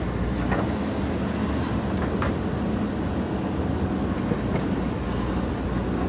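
JCB backhoe loader's diesel engine running steadily under load while the machine works, with a few faint knocks.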